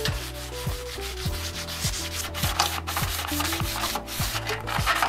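Fine 220-grit sanding sponge scrubbing back and forth over a painted metal range hood, in quick rasping strokes a few per second. It is scuff-sanding to rough up the old finish so spray paint will stick. Soft background music with a beat plays underneath.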